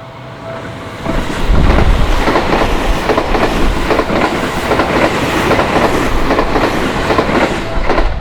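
A Seibu Ikebukuro Line electric train passes over a level crossing. It sets in loudly about a second in, with a rapid clickety-clack of wheels over the rail joints, and stops abruptly near the end. At the start the crossing's electronic warning bell is heard ringing in repeated two-tone pulses, then the train drowns it out.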